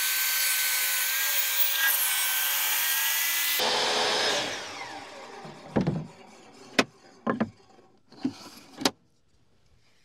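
Hercules 10-inch compact job site table saw running with its blade spinning free and a steady whine, switched off a little over a third of the way in and spinning down with a falling pitch. Then several short wooden knocks as boards are handled on the saw table.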